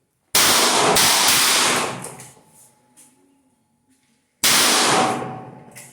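.38 revolver firing at a metallic silhouette range: a shot about a third of a second in and another about four seconds later, each with a long echoing tail.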